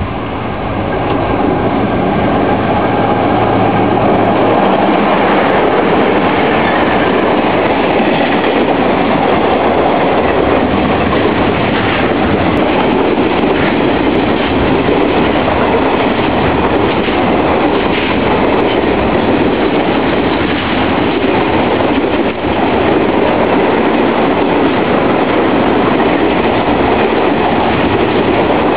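A KiwiRail freight train passing close by, loud throughout. The locomotive's steady tones come through in the first few seconds. After that it is the continuous clatter and rolling of container and box wagons on the rails.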